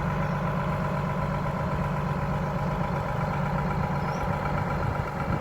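A large engine idling steadily, a constant low hum with no change in speed.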